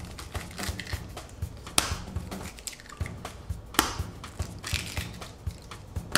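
Eggs being cracked one after another, with two sharp eggshell cracks about two seconds apart, over background music with a steady beat.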